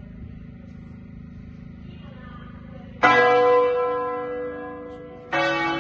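Church bells in the tower overhead ringing a festa, a festive celebratory peal. A loud bell stroke comes about three seconds in and rings on, slowly dying away, and a second stroke follows near the end.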